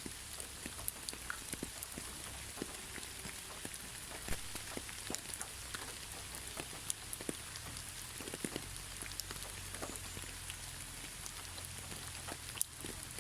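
Steady gentle rain without thunder: a soft hiss with many separate raindrops ticking and pattering on surfaces.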